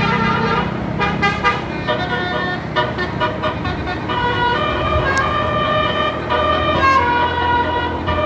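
An 18-note 'basuri' telolet bus air horn playing a melody: several horn tones sound together and step from note to note, with a run of quick short notes about a second in and longer held notes later, over the low rumble of the bus.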